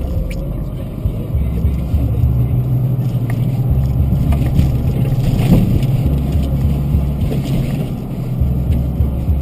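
A 4x4's engine and drivetrain running at low speed over a rough, snow-covered trail, heard from inside the cab as a steady low rumble that swells and eases, with a few knocks from the bumps.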